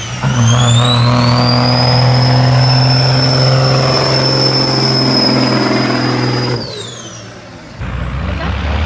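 Diesel semi truck hauling a heavy load at full power: a steady low engine drone under a loud, high turbo whistle. The whistle dips near the start, climbs and holds, then falls away about two-thirds through. Near the end a lower, rougher engine rumble takes over.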